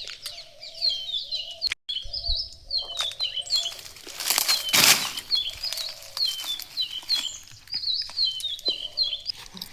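A flock of small birds chirping in quick, repeated short calls, with a brief loud rustle of noise about four and a half seconds in. The sound cuts out completely for an instant a little before two seconds in.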